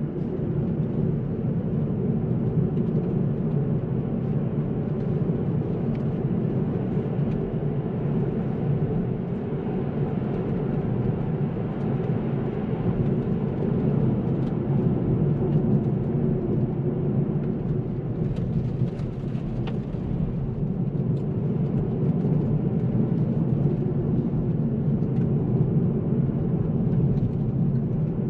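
Kia Ceed SW's 1.5 T-GDI turbocharged petrol engine and tyres while driving: a steady low drone of engine and road noise with no clear revving.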